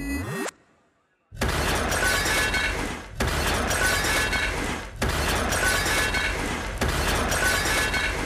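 Dance-routine mix with sound effects: a quick downward pitch-drop, a second of silence, then a glass-shattering crash repeated four times, about every two seconds.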